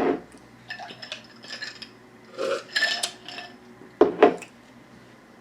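Cutlery and dishes clinking and knocking as they are handled on a table, with two sharp knocks close together about four seconds in.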